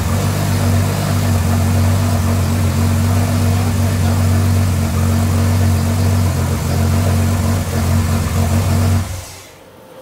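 Newly built, turbocharged GM Vortec 4200 inline-six idling steadily on its first start, then shut off about nine seconds in.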